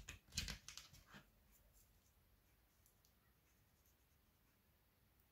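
Faint scratching of a pen being scribbled, a few short strokes in the first second or so, then near silence. The pen has run dry and will not write.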